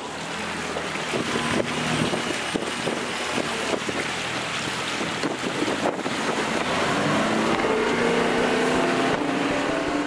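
Bass boat's outboard motor running under way, with wind on the microphone and water rushing past the hull; the engine note rises over the last few seconds as the boat picks up speed.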